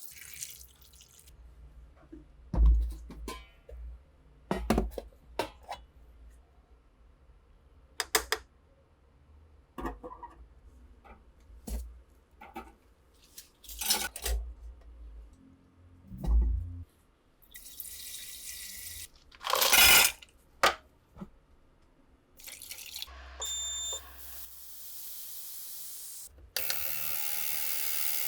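Workshop handling of rifle parts: a series of separate knocks and clicks, then bursts of hiss, with a steady hiss setting in near the end.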